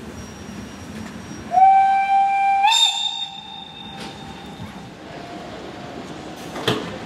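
A train whistle sounds one long blast of about a second and a half, its pitch stepping up just before it stops, then dies away. Low rail noise runs underneath, and a single knock comes near the end.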